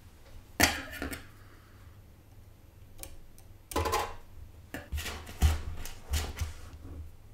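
A handful of small hard clicks and knocks with dull thumps under them, spread over several seconds, as a soldering iron is moved and set against a motherboard's capacitor pads during desoldering.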